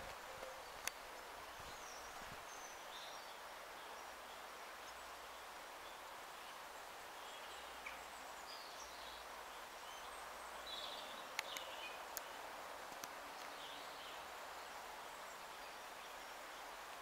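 Faint outdoor ambience: a steady hiss with scattered faint bird chirps and a few sharp clicks.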